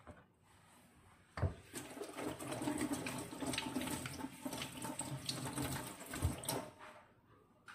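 Water running from a tap for about five seconds, with a knock as it starts and another near the end.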